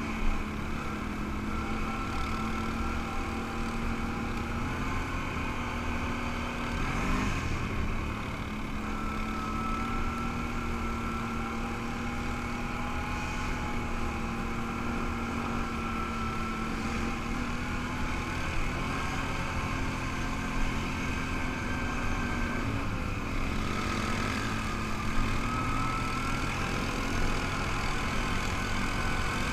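ATV engine running at a steady trail speed, its pitch dipping and picking up again a couple of times, over a rush of wind and rolling noise, with a few sharp knocks.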